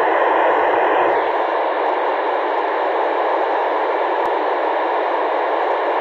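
Steady static hiss from an FM amateur radio receiver with its squelch open, tuned for the PO-101 satellite downlink while the satellite is barely above the horizon; no signal comes through the noise. The higher part of the hiss thins slightly about a second in.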